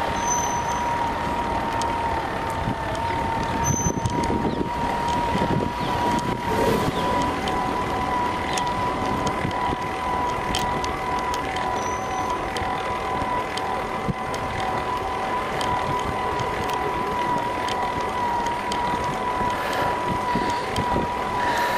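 Pedelec's Panasonic electric drive motor whining at a steady pitch under load on a steep climb, over wind and tyre noise.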